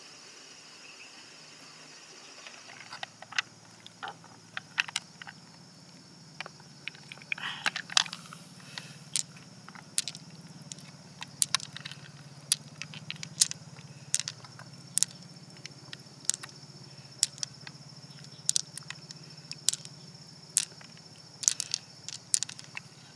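Irregular sharp clicks as pearls are pulled from a large freshwater mussel and knock against one another and the shell in the hand. A steady high insect drone underneath.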